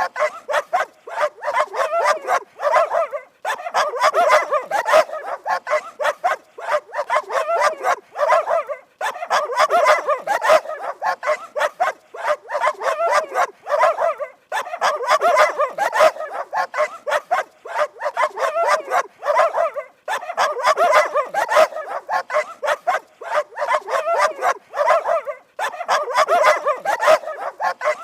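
Dog barking rapidly and continuously, in runs of a few seconds broken by brief pauses.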